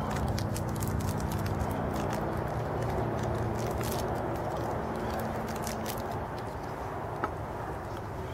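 Scattered small dry snaps and crackles of twigs and kindling being processed for a campfire, over a steady low background rumble.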